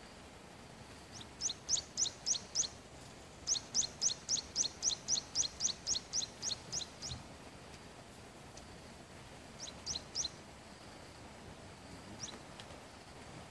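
A bird calling: runs of short, sharp, rising high notes, about three or four a second, in two longer series, then a few more near the end.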